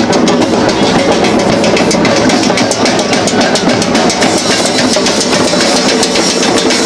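Several drums and other percussion played together in a dense, continuous rhythm, as in a protest drum circle.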